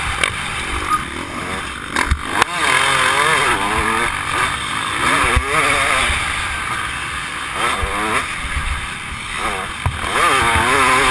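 Dirt bike engine ridden hard, its pitch rising and falling over and over as the throttle is worked through corners and jumps, under heavy wind noise on the helmet-mounted microphone. A couple of sharp knocks about two seconds in.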